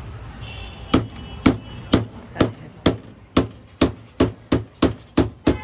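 About a dozen sharp metal knocks on a car steering rack housing, roughly two a second and quickening toward the end, as the greased rack rod is worked into the housing to seat it.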